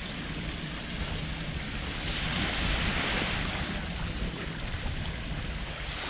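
Waves washing on a beach, with wind rumbling on the microphone; the noise swells about two to three seconds in.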